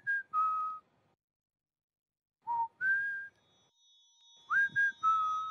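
Whistling of a short tune: three brief phrases, each a quick upward slide into a couple of held notes that step down, with pauses between. A faint high sustained chime comes in about halfway through.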